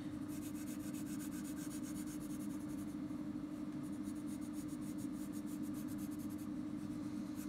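Pencil crayon rubbing and scratching on paper in continuous shading strokes, blending a dark tone out, over a steady low hum.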